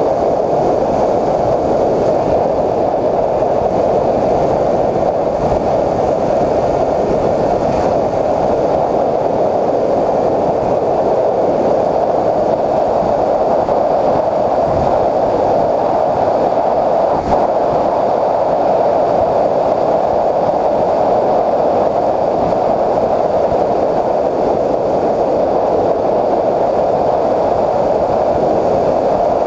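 Steady, muffled rushing of wind and propeller noise, picked up by the onboard camera of a Bixler 3 foam RC plane in flight.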